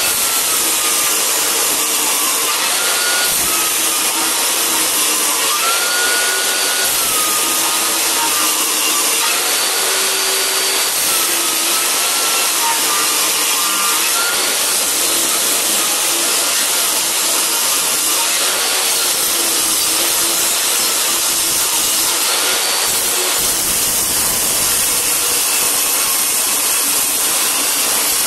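Table saw running and ripping a pine board lengthwise, a loud steady saw noise whose pitch wavers and dips in the first half as the wood is fed through the blade.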